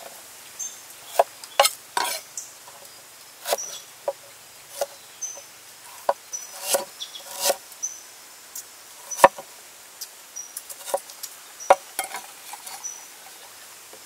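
Heavy cleaver chopping a root on a thick wooden chopping board: irregular sharp knocks, some single and some in quick runs, the loudest about two-thirds of the way through. Short high chirps sound now and then behind them.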